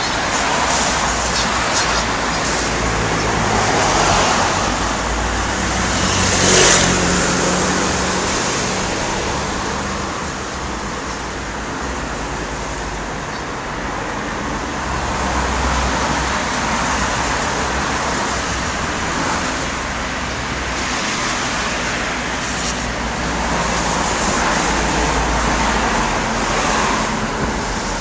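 Rain with road traffic on a wet street: a steady hiss with a low engine rumble, swelling several times as vehicles pass on the wet road.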